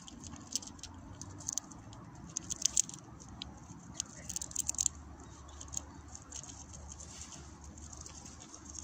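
Eurasian red squirrel gnawing and chewing food held in its paws: quick, irregular crunchy clicks in clusters, busiest in the first five seconds and sparser after.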